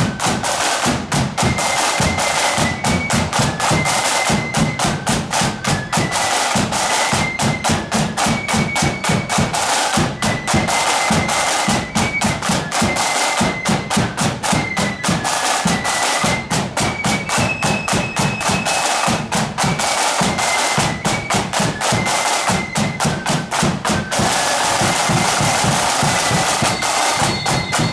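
Marching flute band playing: flutes carry a high stepwise melody over a steady beat of snare and bass drums, with snare rolls.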